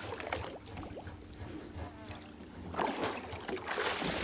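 Sea water lapping and sloshing at the side of a small boat, with small splashy clicks. A louder rush of noise comes in about three seconds in.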